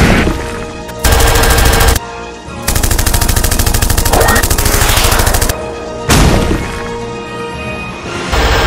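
Rapid machine-gun fire sound effects for the ED-209 robot, in three bursts: one about a second long, one of nearly three seconds, and a last one starting near the end.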